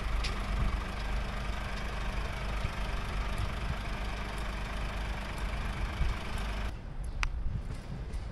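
Heavy lorry's diesel engine idling steadily close by, with a hiss over it that cuts off abruptly near the end.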